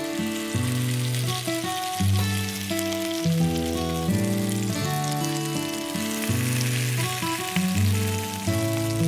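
Background music, a melody of held notes changing about every half second, over a light steady sizzle of chickpea falafel balls frying in a little oil in a pan.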